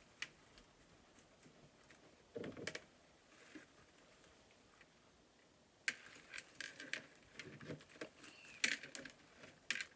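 Super sticky slime being handled: scattered faint clicks and a soft squelch, then a denser run of sharp sticky clicks and crackles from about six seconds in.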